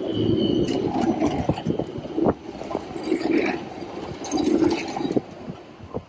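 Helsinki Transtech Artic tram running close by on snow-covered rails, a steady rumble of wheels and drive that swells and fades several times, with some higher grinding from the wheels.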